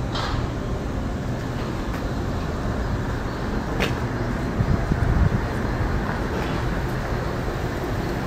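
Steady low rumble of a Tobu 500 series electric train rolling slowly through the yard, with a couple of brief sharp high noises, one just after the start and one about four seconds in.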